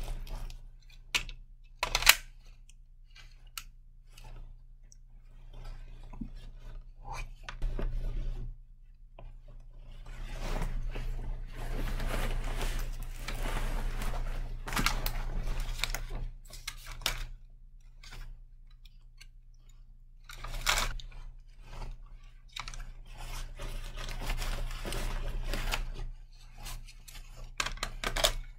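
Rustling and scraping of clothing and tactical gear being handled, with scattered sharp clicks, over a steady low hum.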